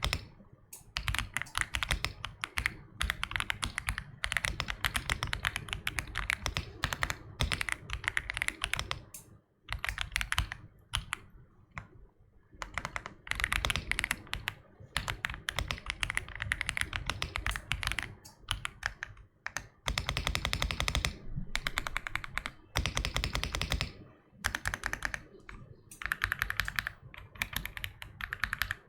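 AULA F75 mechanical keyboard being typed on quickly: dense runs of key clacks in bursts of a few seconds, broken by brief pauses.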